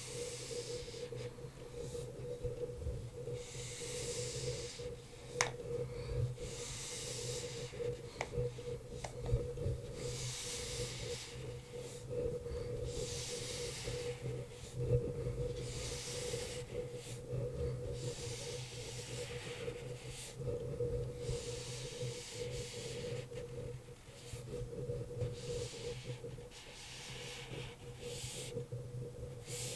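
Whiteboard eraser rubbing across a whiteboard in repeated swishing strokes, each lasting a second or two, over a steady low electrical hum.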